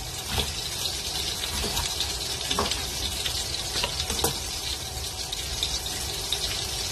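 Pork slices frying in hot oil, a steady sizzle, with a few knife taps on a plastic cutting board as a red onion is sliced.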